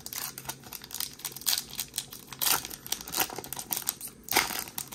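Wrapper of a Topps 2022 Series 2 baseball card pack being torn open and crinkled by hand: a dense run of crackles, with the loudest crinkles about two and a half seconds and four and a half seconds in.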